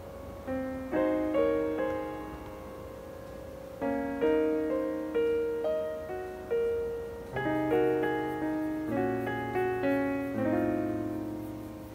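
Background music: a light piano melody of struck notes that die away after each strike, with a low bass line joining about seven seconds in.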